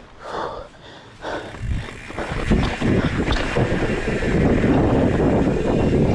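Mountain bike rolling along a dirt singletrack, heard from a handlebar camera: tyre noise over dirt and leaf litter mixed with wind rumble on the microphone. It turns louder and steadier about two and a half seconds in.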